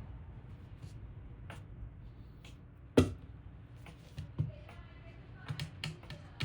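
Light clicks and taps, with one sharp, loud click about three seconds in, over a low steady hum.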